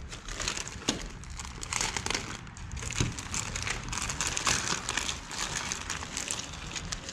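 Clear plastic packaging bags crinkling and rustling as they are handled and pulled open, with a couple of sharp clicks.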